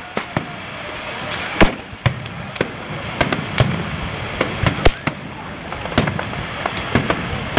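Aerial firework shells bursting in an irregular run of sharp bangs and crackles over a steady background din, the loudest bangs about a second and a half in and near five seconds.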